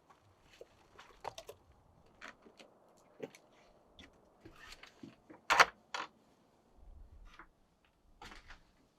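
Irregular clicks, knocks and rustles of objects being handled. The loudest is a sharp knock about five and a half seconds in, with a second one just after.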